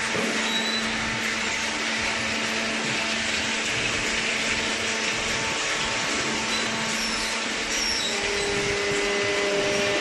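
Industrial machinery in a cardboard baling plant running steadily: a constant whirring with a low hum, joined by a second, higher hum about eight seconds in.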